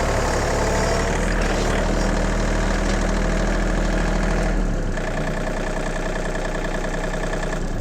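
John Deere 2032R compact tractor's three-cylinder diesel engine running steadily while working a backhoe and loader. The engine note shifts and drops slightly just under five seconds in.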